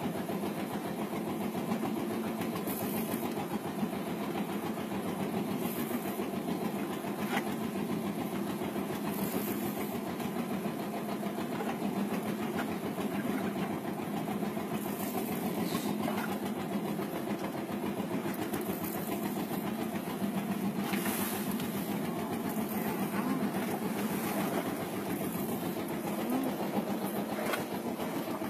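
A boat's engine running steadily, a continuous low drone with no change in pace.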